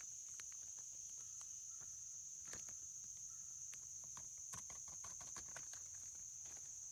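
Steady high-pitched chorus of insects, with scattered faint clicks and taps.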